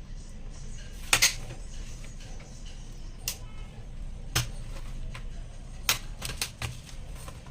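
Laptop parts being handled during hardware work: a handful of sharp clicks and taps at irregular intervals, with a quick cluster of them near the end.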